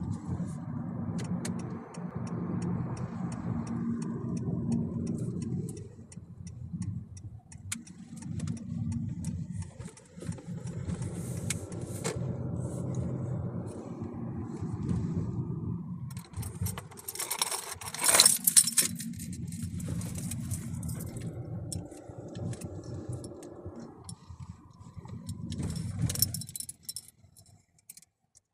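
Inside a moving car: a low engine and road rumble with short dips, and a set of keys jingling, loudest in a burst about two thirds of the way through.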